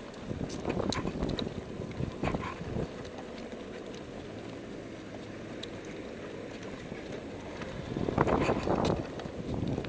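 Wind buffeting the microphone of a bike-mounted action camera while the bicycle rolls along a paved path, with a few knocks and clicks in the first three seconds and a louder gust of wind noise about eight seconds in.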